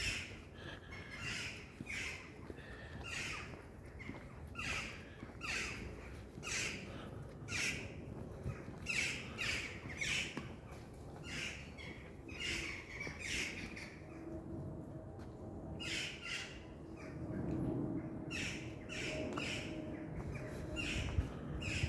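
Footsteps at a steady walking pace, a short scuff with each step about one and a half times a second. A faint steady low hum comes in about two-thirds of the way through.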